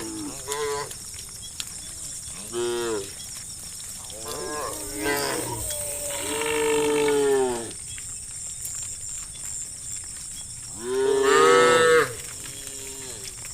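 Cows mooing, about six separate calls one after another from several animals. The longest call comes around the middle and the loudest near the end.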